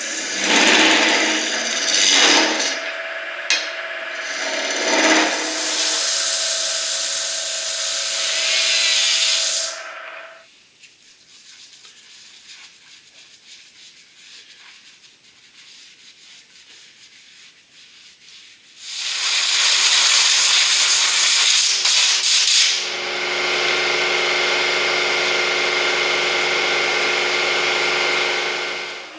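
Wood lathe spinning a holly-and-epoxy bowl blank while a gouge cuts a recess into its face, scraping in uneven surges. A much quieter stretch follows in the middle, then the lathe runs loud and steady near the end, with a faint whine.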